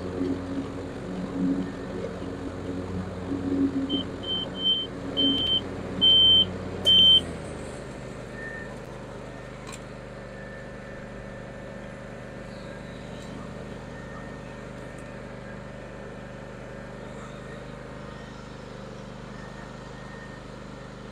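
John Deere X350R ride-on mower's Kawasaki V-twin engine running while mowing, with a series of loud electronic beeps partway through, three short then three longer. After about seven and a half seconds the engine sound drops away, leaving a quieter steady background.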